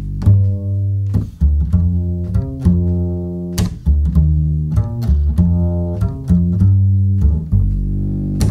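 Background music led by a plucked bass line of low, quick notes.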